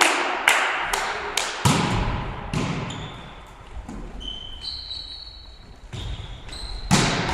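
Volleyball rally in an echoing sports hall: a run of sharp, evenly spaced smacks, a little over two a second, then a thud of the ball being struck about one and a half seconds in. Athletic shoes squeak on the wooden floor in the middle, and the ball is hit hard twice near the end.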